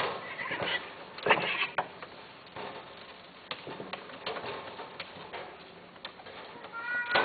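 A caged cat giving short, high meows, one at the start and one near the end, with scattered clicks and knocks in between, loudest about a second and a half in.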